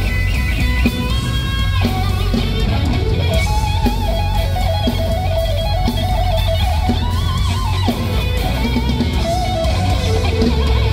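Live electric guitar solo on a Fender Stratocaster: held, bent notes with a wide, wavering vibrato over the rock band's bass and drums, in a loud, bass-heavy crowd recording.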